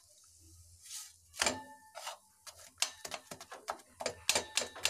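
A metal fork pricking a sheermal flatbread in a nonstick pan, its tines clicking against the pan with a brief metallic ring. The bread is being docked so it does not puff up. The taps come irregularly and grow more frequent in the second half.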